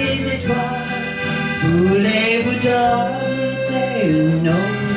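Folk music from an accordion and acoustic guitars, with a voice singing a gliding melody line over the steady chords.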